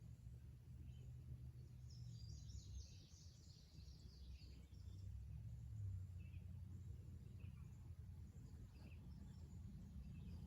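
Near silence: a faint steady low hum, with faint high chirping about two to four seconds in.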